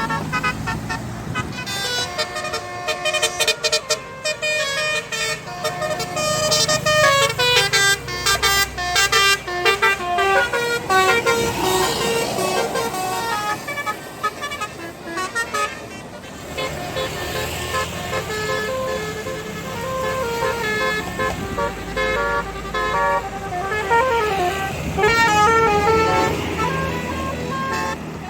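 Bus 'telolet' horn, a multi-tone basuri horn, playing a long tune of quick stepped notes over the bus's engine running.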